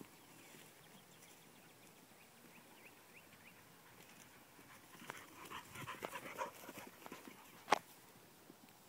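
Pit bull running through tall grass close by: quick rustling and light steps from about five seconds in. A single sharp click near the end is the loudest sound.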